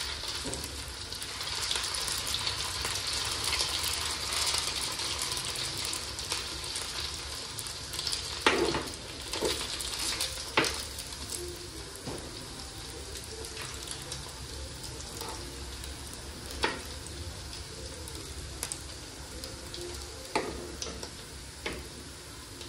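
Food frying in hot oil in a pan: a steady sizzle, strongest for the first few seconds and then settling lower. A few sharp knocks break in at intervals.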